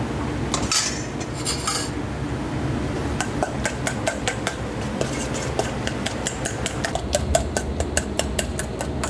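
A metal fork clinking and scraping against a stainless-steel bowl as cooked rice is mixed with egg for egg fried rice. The strokes come as quick repeated clinks from about three seconds in, with a few scrapes about a second in.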